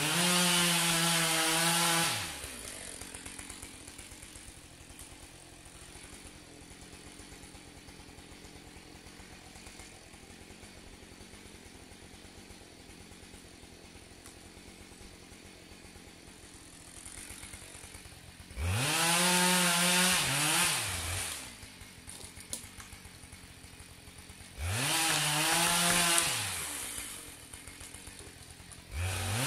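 Husqvarna 572 XP two-stroke chainsaw idling, then revved to full throttle in short bursts of about two seconds, three times plus once more at the very end, each time dropping back to idle.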